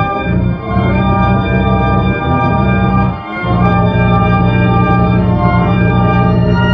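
Loud, sustained organ-like electronic chord held steadily, with two brief dips in level, heard as a looped novelty sound effect.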